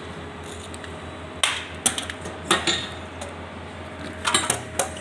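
Sharp metallic clicks and clinks from hands working at the spark plug and plug lead of a concrete power trowel's small gasoline engine, in two short clusters, over a steady low hum.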